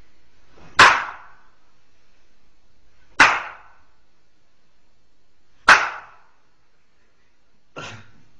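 Three loud, sharp smacks about two and a half seconds apart, each dying away quickly, then a fainter smack near the end.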